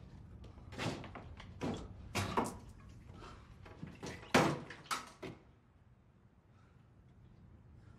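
Knocks, thuds and scrapes of objects being handled and bumped in a room, about eight of them through the first five seconds, the loudest a little after four seconds in, then only faint room noise.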